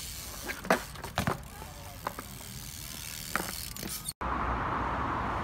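BMX bike's freewheel hub ticking as it rolls, with a few sharp knocks of the bike on the ground, the loudest about a second in. About four seconds in it cuts off and a steady background noise takes over.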